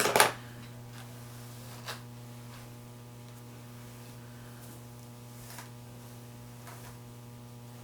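Steady electrical mains hum, with a short burst of noise right at the start and a few faint, brief rustles scattered through.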